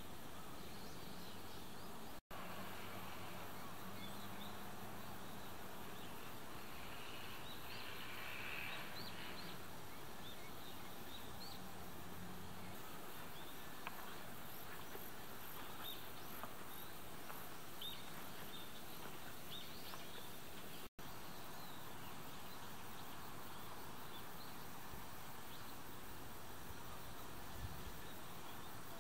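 Countryside outdoor ambience: a steady hiss with scattered faint high chirps. A faint low hum fades out about halfway, and the sound drops out for an instant twice.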